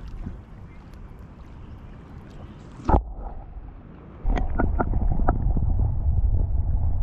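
Flowing creek water with low wind rumble on the camera microphone; about three seconds in, a sharp splash-thump as the GoPro plunges under the surface and the sound goes muffled. From about four seconds a loud low underwater rumble of the current pushing against the camera housing, with scattered clicks.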